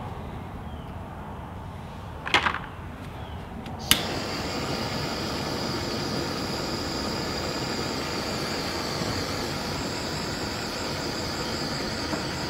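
Small handheld heat gun clicks on about four seconds in, then blows steadily with a thin high whine over its hiss while it shrinks heat-shrink tubing onto a battery cable end. A short clatter about two seconds in is the loudest moment.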